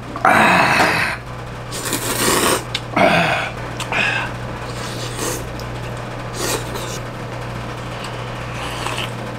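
A person slurping ramen noodles: several loud, rasping slurps in the first four seconds, then quieter eating sounds, over a steady low hum.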